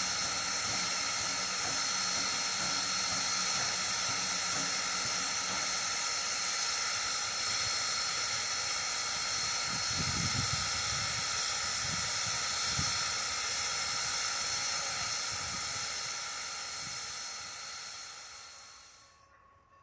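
Steam locomotive, ex-Norfolk and Western 475, venting steam in a steady hiss, with a few low rumbles partway through; the hiss fades and then cuts off near the end.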